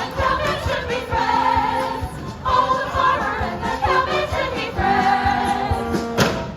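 Theatre pit orchestra playing fast music with a steady drum beat, with the cast's voices mixed in. A single sharp bang about six seconds in, after which the music stops.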